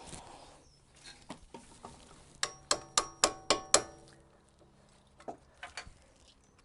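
A run of about six sharp metallic clinks with a brief ring, about three a second, from a hand tool knocking against a suspension nut and its steel parts, among scattered lighter knocks.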